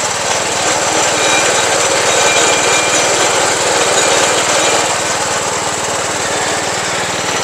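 Small engine driving a street-stall sugarcane juice press, running steadily with a fast, even pulse as sugarcane stalks are fed through the crushing rollers.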